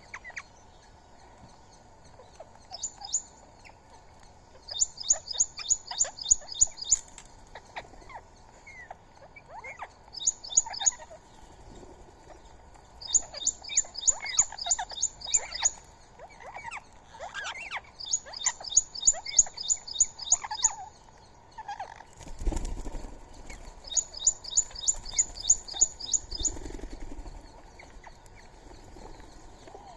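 Birds chirping at a feeding spot. A rapid series of high-pitched notes comes in bursts of a second or two, repeated every few seconds, with scattered lower chirps between them. About two-thirds of the way through, a brief low rumble is heard.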